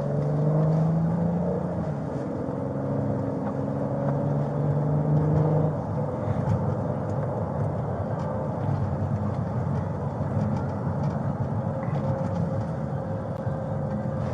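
Car heard from inside the cabin while driving. The engine's pitch climbs a little through the first few seconds as it accelerates, then gives way to a steady road rumble.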